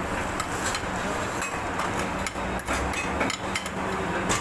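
Metal serving spoon clinking and knocking against a large metal cooking pot and a plate as biryani is dished out: irregular sharp knocks, several a second, over a steady low hum.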